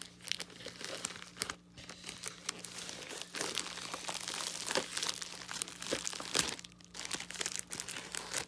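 Package wrapping crinkling and crunching as it is handled and cut into with scissors, an irregular run of crackles and sharp clicks.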